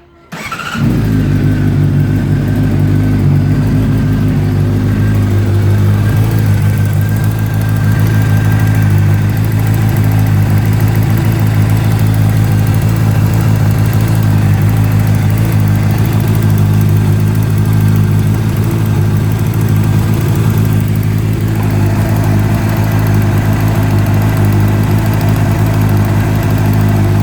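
2009 Honda CBR600RR's inline-four engine fires up about a second in and idles steadily, with a metal-to-metal clicking that the owner traces to an exhaust leak at the header gaskets.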